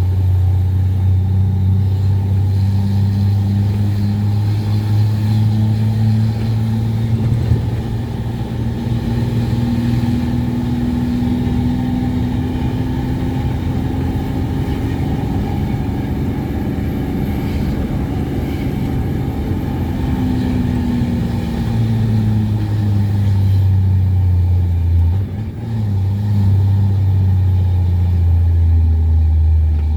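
Ford Cargo 2428 truck's diesel engine pulling hard under a heavy load while climbing, a steady deep drone. The sound briefly drops once about 25 seconds in, then pulls on at a lower pitch near the end.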